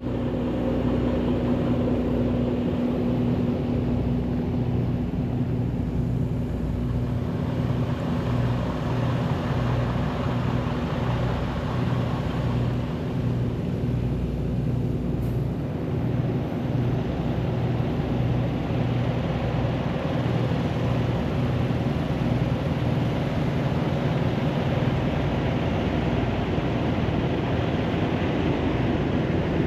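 A motor vehicle's engine running steadily with a constant low rumble and hum, as when driving along.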